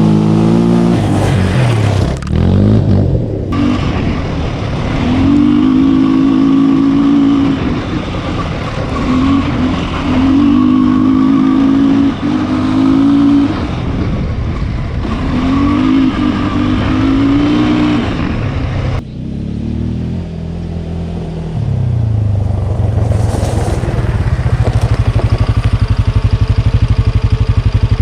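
Aeon Cobra quad engine revving hard under acceleration in about four repeated runs, its pitch climbing and holding each time. About 21 s in it drops to a steady, pulsing idle.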